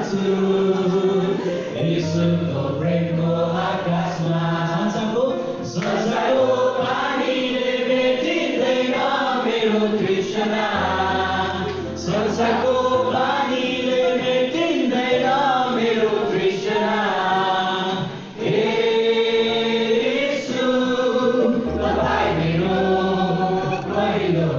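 A congregation singing a worship song together, backed by long, held low notes from an accompanying instrument.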